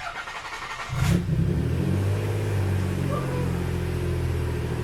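1991 Nissan 300ZX's V6 cranking on the starter for about a second, then catching with a brief flare and settling into a steady idle. It is the first start after a failed ignition coil was replaced, and the engine runs the way the owner expects of his car.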